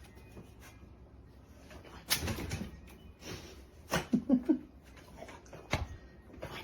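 Magnetic self-closing flap of a screen-door dog door being pushed through and swinging: a swish about two seconds in, a quick run of light slaps about four seconds in, then two sharp clicks near the end.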